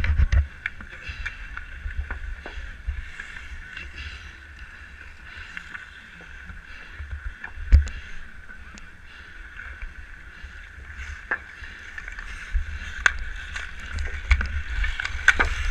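Hockey skate blades scraping and gliding over rough outdoor pond ice in a steady hiss, with a low rumble that comes and goes. Several sharp clicks of hockey sticks striking the puck and ice, the loudest about eight seconds in and more near the end.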